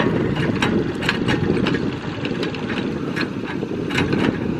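Tracked excavator's diesel engine running steadily as the machine moves over dirt, with irregular sharp metallic clanks scattered through it.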